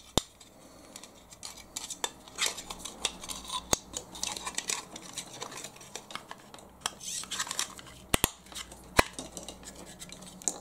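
Hard plastic scraping, rattling and clicking as a hobby servo is worked into a tight cut-out in a plastic mounting block, with several sharp clicks among the scraping.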